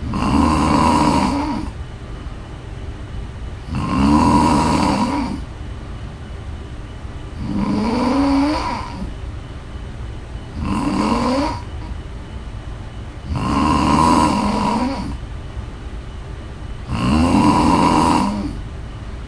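A woman snoring in her sleep: six loud snores, one about every three seconds, each lasting around a second and a half, some rising in pitch. A steady low hum fills the gaps between them.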